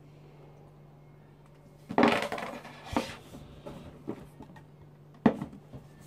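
Glassware handled on a hard bar counter. A loud knock comes about two seconds in, followed by lighter clinks and knocks and one sharp knock near the end.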